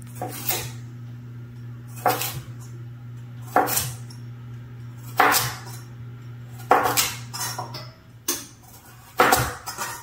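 Knife chopping through carrots onto a cutting board, one sharp stroke about every second and a half. Under it is a steady low hum that stops about eight seconds in.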